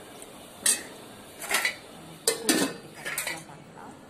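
Steel spoon and ladle clinking and scraping against stainless-steel pots, about five sharp clinks spread over a few seconds.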